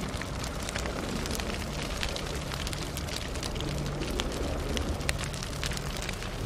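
Crackling fire sound effect: a steady low rumble scattered with many sharp crackles and pops.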